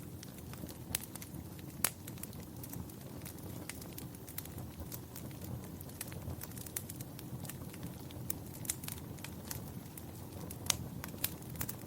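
Wood fire burning in a fireplace: a steady low rumble of flames with irregular crackles and a few sharper pops, the loudest near the end.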